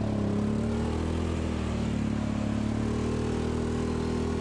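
Side-by-side UTV engine running as the vehicle drives along, heard from the open cab; its pitch wavers slightly in the first second, then holds steady.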